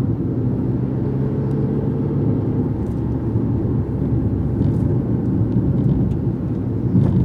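Car interior: steady engine and tyre-road drone while driving at a constant speed, with a few faint ticks.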